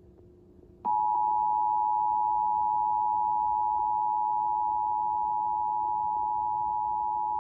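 Emergency Alert System two-tone attention signal: two steady tones sounding together, starting sharply about a second in and holding unchanged. It marks the start of an EAS Required Monthly Test on broadcast TV.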